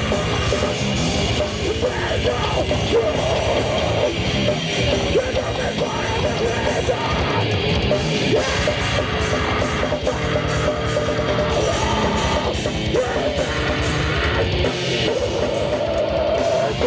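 Heavy metal band playing loud and continuous, with distorted electric guitar and drums.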